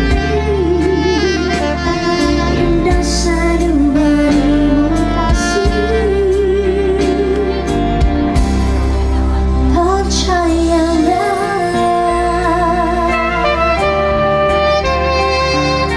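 Live band music with a man and a woman singing a slow song into microphones; by about halfway through the woman sings on alone while the band keeps playing.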